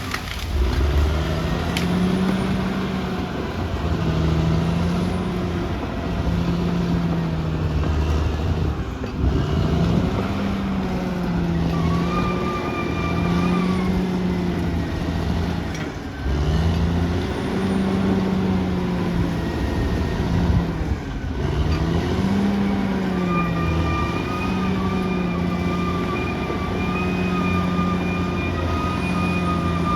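Caterpillar D6R XL bulldozer's diesel engine working under load, its pitch sagging and recovering every few seconds as the load changes. A high steady whine comes in for a couple of seconds near the middle and again for most of the last part.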